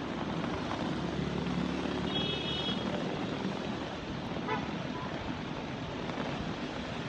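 A vehicle engine passing on the bridge over a steady rushing noise of wind and fast-flowing floodwater, with a short high beep about two seconds in.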